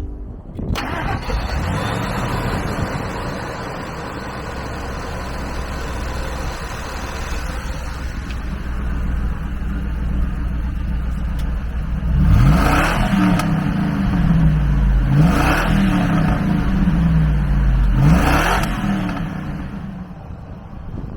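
1999 Ford F-150 SVT Lightning's supercharged 5.4-litre V8 starting and idling, then revved three times, each rev rising and falling back to idle.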